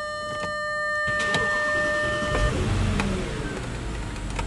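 Audi Q7's 4.2-litre V8 FSI engine starting about two seconds in, revs flaring and then falling back toward a steady idle. The engine is misfiring, with fault codes for random misfires on several cylinders and stuck intake manifold flaps.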